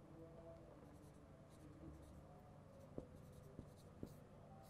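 Faint strokes of a marker pen writing a word on a whiteboard, with a few soft ticks in the second half.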